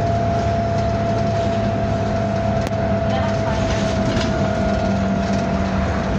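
Bus 27244 running with a steady high-pitched whine over a low engine drone, the weird noise it is known for.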